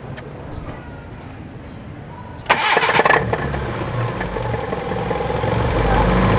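Car engine cranked by its starter about two and a half seconds in, catching and then running, getting louder toward the end.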